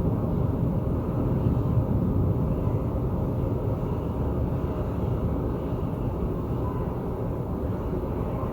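Thunder rolling in a long, steady low rumble that swells a little in the first few seconds.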